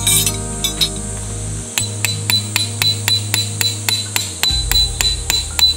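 A peg hammer drives a metal tent peg into the ground with quick, light metallic strikes about four a second, each with a short ring, starting about two seconds in. Background music plays under the strikes.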